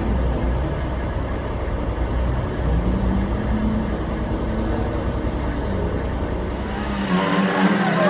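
A vehicle engine running with a steady deep rumble and a slowly wavering pitch. About seven seconds in, the deep rumble drops away and a brighter, busier sound takes over.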